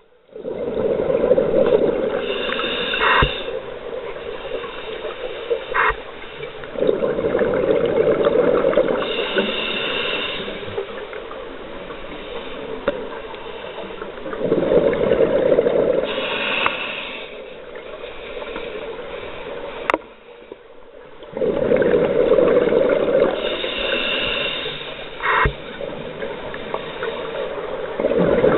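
Scuba divers breathing through regulators underwater: a rush of exhaled bubbles about every seven seconds, each lasting two to three seconds, with a quieter hiss between them and a few sharp clicks.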